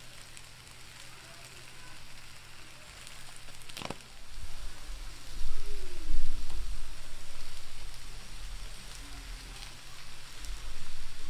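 Potatoes, sweet potatoes, peppers and onions sizzling on a hot cast-iron flat-top griddle, with sliced sausage tossed onto the cooking surface partway through. A sharp click comes about four seconds in, and bursts of low rumbling follow.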